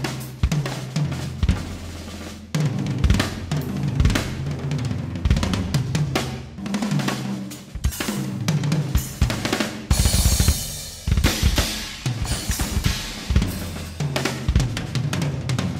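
Acoustic drum kit playing a busy rock-fusion groove, with kick, snare, tom and cymbal hits, over synthesizer keyboard lines. A loud cymbal crash rings out about ten seconds in.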